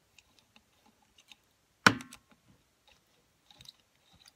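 Small metal clicks and scrapes of a hex key and screw being worked on a metal djembe rope-pulling tool, with one sharp, loud metal clack about two seconds in.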